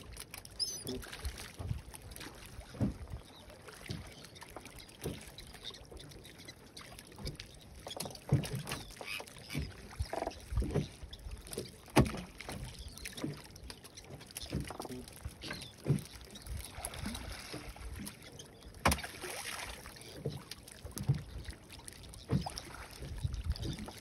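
Water slapping and lapping against the hull of a small open wooden boat at rest, with irregular knocks as the boat rocks and gear shifts in it.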